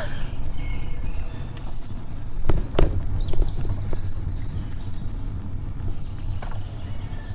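Bicycle ride on a paved path: a steady low rumble of wind on the phone's microphone and tyres on the asphalt, with a couple of sharp knocks about two and a half seconds in. Birds chirp now and then in the background.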